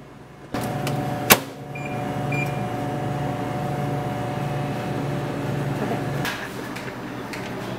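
A microwave oven's door shutting with a sharp click, two short keypad beeps, and a steady machine hum with a pulsing low drone that eases off about six seconds in.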